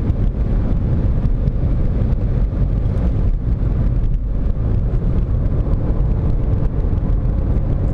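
VW Golf 7 2.0 TDI driving, with steady low engine and road noise and a few sharp crackling clicks. This is the twisting, crackling rattle the car makes under acceleration in low gears, a fault that was fixed with a new subframe.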